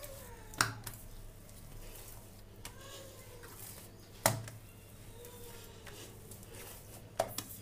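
Hands kneading soft yeast dough on a countertop: faint rubbing and pressing, with three dull thumps as the dough is pushed down, about half a second in, near the middle and near the end.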